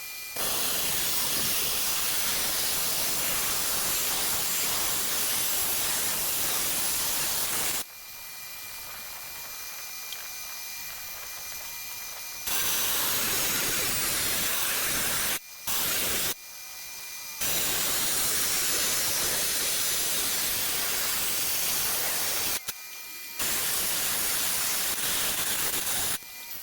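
Rock saw running and cutting through a rock: a steady, loud hissing noise that switches suddenly to a quieter level and back several times.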